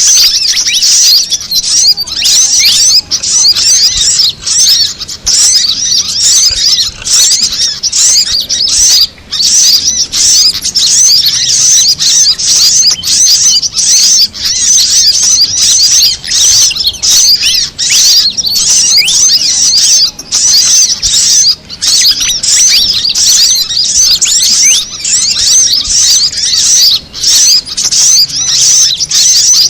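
Bird-lure recording of small songbirds calling: a loud, dense, continuous stream of rapid, overlapping high chirps and twittering, mixing fantail calls with sunbird calls.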